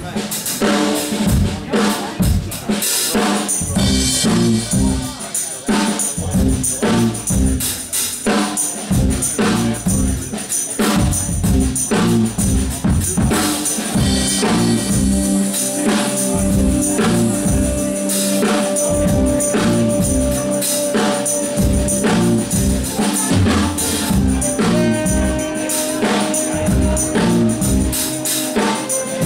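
Live band playing an upbeat groove: drum kit and hand percussion keep a steady beat under bass, electric guitar, keyboards and saxophones, with held notes coming in about halfway through.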